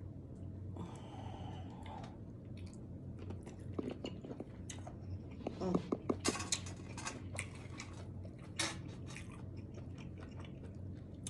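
A person chewing and biting seafood-boil shrimp close to the microphone: a run of short clicks and crunches, heaviest about halfway through.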